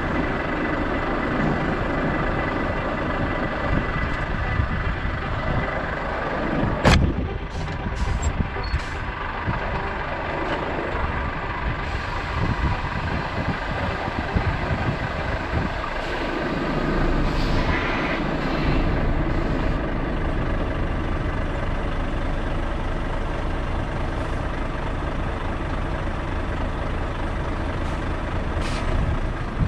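Lorry running, a steady heavy engine and road noise, with a sharp knock about seven seconds in.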